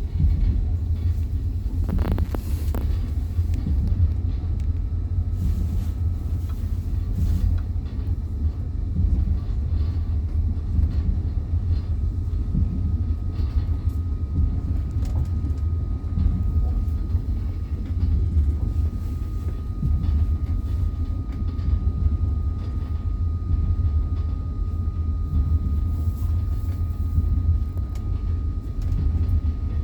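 Inside a moving train carriage: a steady low rumble of the wheels running on the rails, with scattered knocks and a sharper knock about two seconds in. A faint steady high whine runs underneath from about three seconds on.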